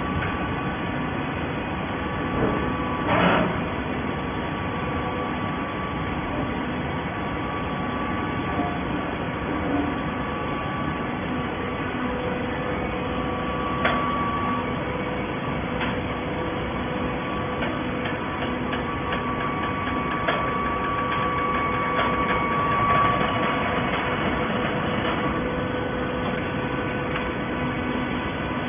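Plastic bottle baling machinery running: a steady mechanical hum with several held tones, broken by a louder knock about three seconds in and a few sharper clicks later on.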